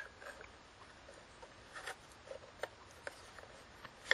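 Faint, scattered small clicks and scrapes as fingers handle and pry at the plastic battery cover of a solar floodlight's housing.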